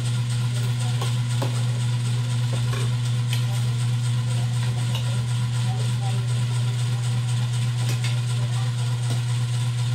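A steady low mechanical hum that holds unchanged throughout, with a few faint clicks of spoons and forks on plates.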